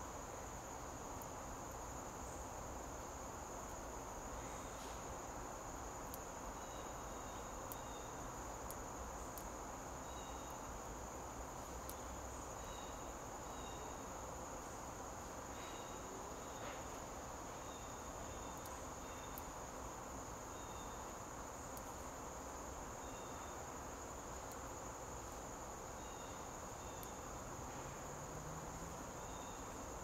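Steady high-pitched trill of background insects, an unbroken chorus. Faint short double chirps come and go over it every second or two.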